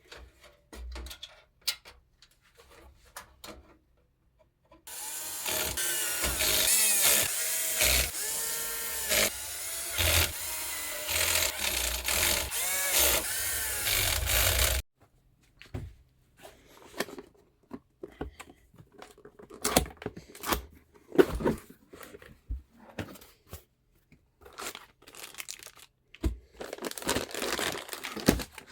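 Electric screwdriver or drill motor whirring for about ten seconds, its pitch rising and falling as it speeds up and slows, likely driving screws into PC parts. Before and after it come scattered clicks and knocks of hardware being handled.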